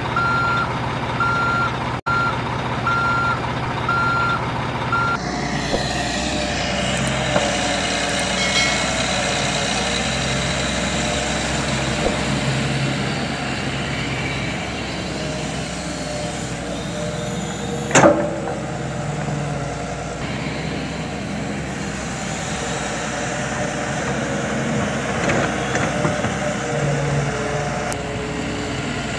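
Toy construction vehicles at work: evenly repeated reversing-style beeps for about the first five seconds, then a steady engine-like running noise with motor whine as the RC excavator digs, and one sharp knock about 18 seconds in.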